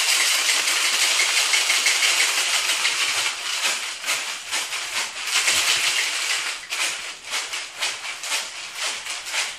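Ice rattling inside a cocktail shaker shaken hard, a dense rapid rattle that eases briefly about six and a half seconds in. The hard shake chills the drink and breaks up the rosemary in it.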